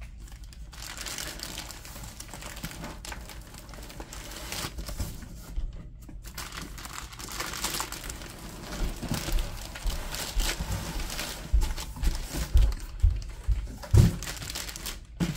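Clear plastic wrapping crinkles as a large boxed set is handled and pulled out of a cardboard shipping carton. A few dull thumps come near the end as the box is lifted and set down.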